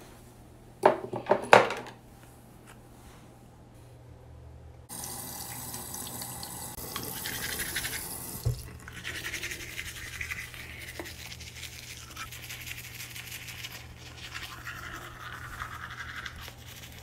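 A few clicks and rattles of items in a bathroom drawer about a second in. From about five seconds, a toothbrush scrubbing teeth in continuous brushing strokes over a low steady hum.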